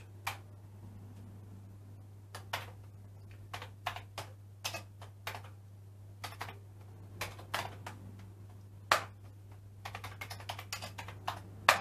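Commodore 64 keys being typed: single sharp key clicks with pauses between them, then a quicker run of keystrokes near the end, over a steady low electrical hum.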